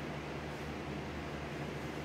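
Steady room tone: a constant low hum with a faint, even hiss and no distinct events.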